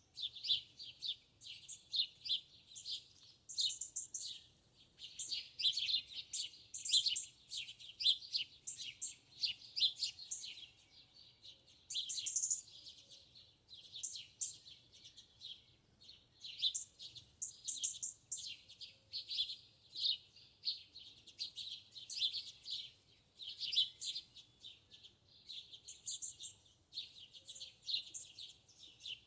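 Small birds chirping and twittering continuously, a dense run of quick high-pitched notes with hardly a pause.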